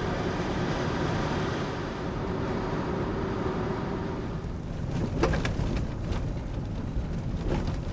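An SUV driving along a road: steady engine and road noise, with a brief sharper sound about five seconds in.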